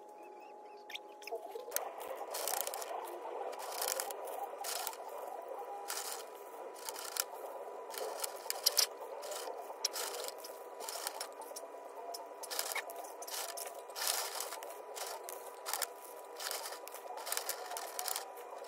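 Small white landscape rocks clicking and clattering against one another as they are scooped and handled by gloved hands, in an irregular run of sharp clicks that starts about two seconds in.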